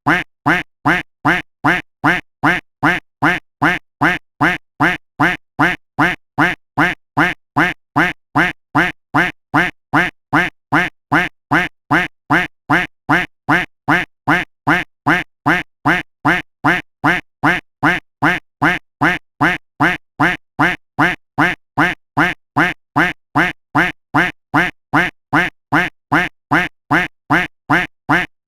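A duck quack sound effect looped without a break: the same short quack repeats at an even pace, about two a second.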